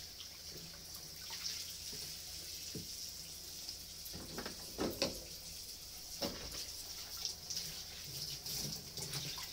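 Kitchen tap running steadily into a stainless-steel sink as a white plastic cutting board is rinsed under it, with a few knocks and clatters near the middle.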